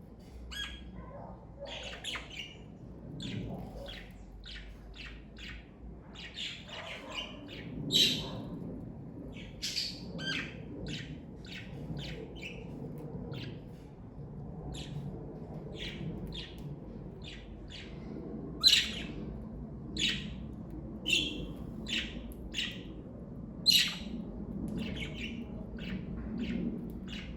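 Pet budgerigars (Australian parakeets) chirping in a stream of short, irregular calls, with a few much louder sharp chirps standing out.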